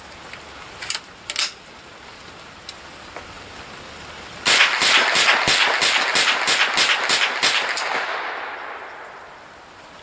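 Savage Model 64 semi-automatic .22 LR rifle firing a rapid string of shots, about four a second, starting about halfway in and lasting a few seconds. Each round cycles without a stoppage, and the shots' ringing fades away afterward.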